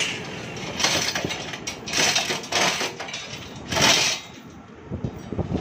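Metal clattering and scraping in several short bursts, like steel pieces being handled and knocked together.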